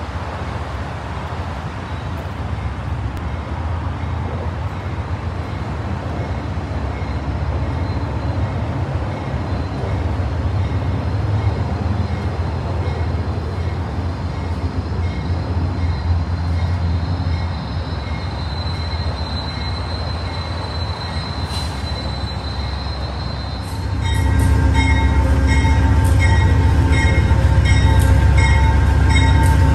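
Amtrak GE Genesis diesel locomotive drawing a passenger train into the station, its engine giving a low rumble. A little past twenty seconds in, the rumble grows louder and the locomotive's bell starts ringing with steady, evenly spaced strikes.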